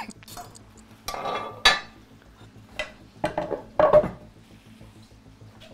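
Kitchen utensils and cookware clattering during plating: a handful of short clinks and knocks of metal on plates and pans.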